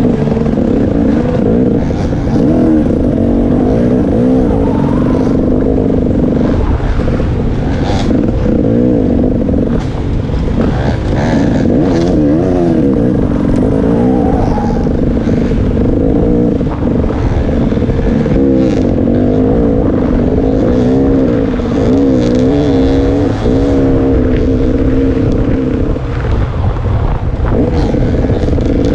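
KTM 300 XC-W Six Days single-cylinder two-stroke dirt bike engine, close to the microphone, its pitch rising and falling constantly with the throttle as it is ridden along a trail, over a steady low rumble. A few sharp knocks cut through now and then.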